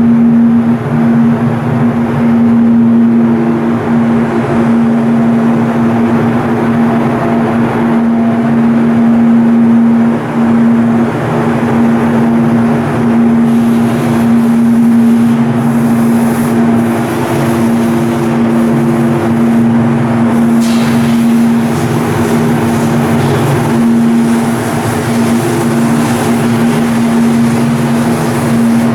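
Coastal cargo ship's diesel engine running steadily, a loud, even drone with a constant hum.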